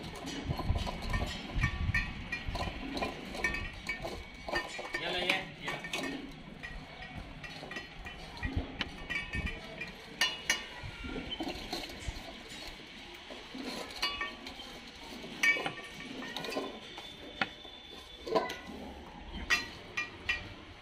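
Dogs eating from stainless steel food bowls: irregular clinks and clanks of the metal bowls being nudged and knocked as they feed.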